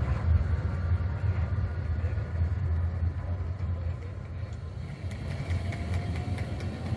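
Tram rolling along curved track, a steady low rumble that slowly fades as it moves away. About five seconds in it gives way to quieter street background with faint clicks.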